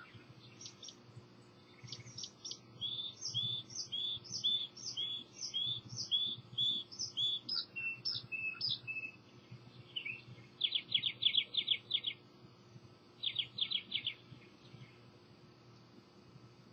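Songbirds singing: a quick run of about ten repeated two-note phrases, then a few lower notes and two rapid trills near the end.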